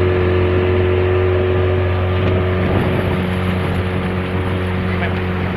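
Outboard motor of a small fishing boat running at a steady speed as the boat moves along, a loud even drone that holds one pitch throughout.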